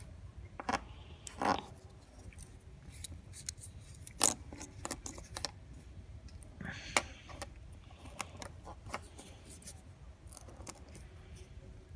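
Tweezers clicking and scraping on a wooden tabletop as dry rue fruit capsules are broken open for their seeds, with scattered small clicks and a few brief rustles.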